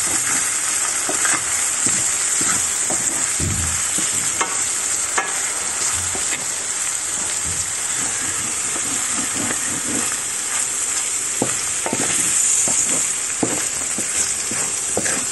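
Chopped Cypriot wine sausages and eggs sizzling steadily in a stainless steel frying pan, stirred with a wooden spatula that scrapes and knocks against the pan at irregular moments.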